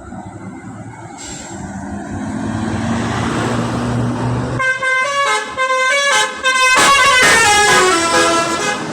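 A bus's engine grows louder as it draws near. About halfway through, a basuri multi-tone bus horn plays a quick melody of stepping notes, and the notes fall in pitch near the end.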